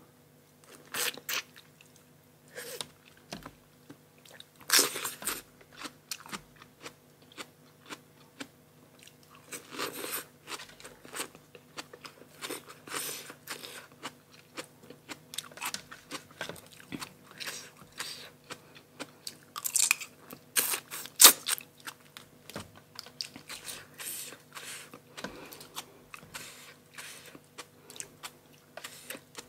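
Close-miked eating of a blue-crab papaya salad meal with raw vegetables: crunchy bites and wet chewing in irregular bursts. The loudest crunches come about twenty seconds in.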